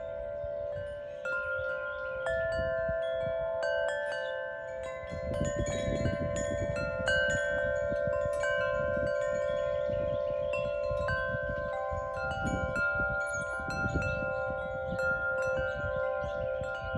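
Wind chimes ringing, many metal tones struck at irregular moments and overlapping as they ring on, over a low, gusty rumble that swells a couple of times.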